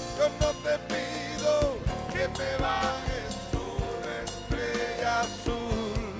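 Live band playing an instrumental passage of a slow Cuban song: drum kit and congas keeping a steady beat under a held, gliding melody line.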